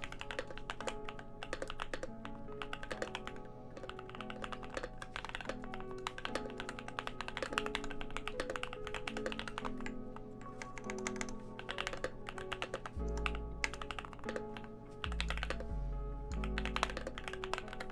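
Fast typing on a Keychron Q2 mechanical keyboard with Banana Split linear switches and PBT Cherry-profile keycaps on a steel plate with foam and tape mod: a rapid run of overlapping key strokes. Background music plays along, with a deep bass line coming in about two-thirds of the way through.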